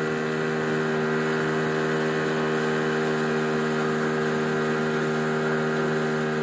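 Small outboard motor on a tinny driving the boat at a steady speed, its drone holding one even pitch throughout.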